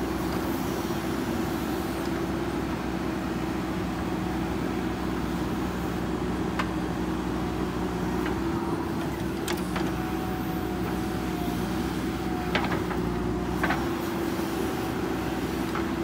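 Diesel engine of a JCB 3DX backhoe loader running steadily while the backhoe arm swings and digs in the soil, with a few sharp knocks in the second half.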